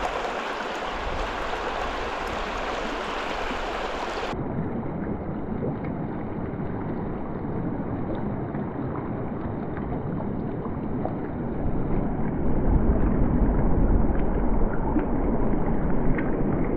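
Shallow river rushing over rocks in a steady wash of water. About four seconds in the sound turns duller, and from about twelve seconds it grows louder and more rumbling as the water laps right at the microphone.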